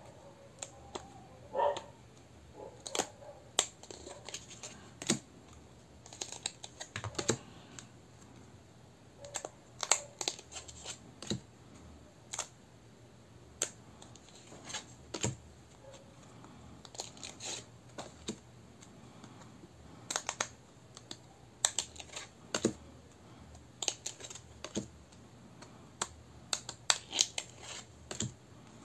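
A tarot deck's cards being handled and turned over one after another, giving irregular light clicks and taps of card stock, sometimes several in quick succession.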